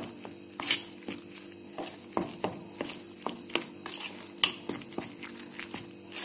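A spoon scraping and clinking against a stainless steel bowl while stirring a thick, coarsely ground chana dal paste, in irregular strokes a few times a second. A steady low hum runs underneath.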